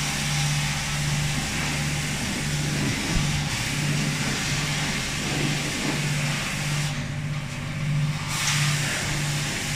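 High-pressure water hissing from a car-wash pressure lance onto a car body, over the low pulsing hum of the wash bay's pump, about two pulses a second. Near the end the spray cuts out for about a second, then starts again.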